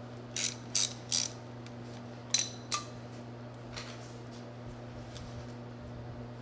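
Irregular sharp metallic clinks of a small socket wrench against the steel bolts that hold a Bafang BBS02 mid-drive motor's controller as they are loosened. The clinks are clustered in the first three seconds, the loudest a little past two seconds in, over a steady low hum.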